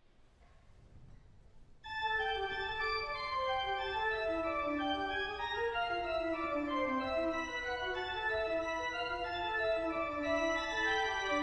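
Pipe organ playing on bright mixture stops, entering suddenly about two seconds in after faint room noise. It moves in quick runs of notes over a sustained texture.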